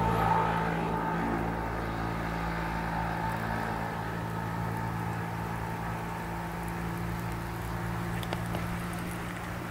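A steady low engine hum, slowly growing fainter.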